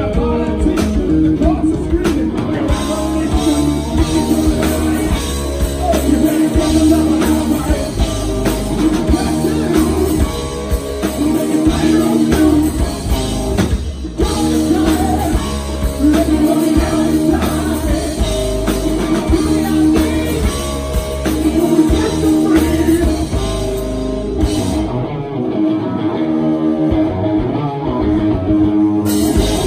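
A rock band playing live: electric guitars and a drum kit. Near the end the drums and low end drop out for a few seconds, leaving the guitars alone, before the full band comes back in.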